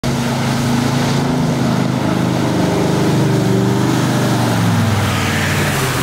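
Four-wheel-drive ute's engine running steadily under load as it ploughs through a muddy puddle, with water splashing and spraying off the vehicle.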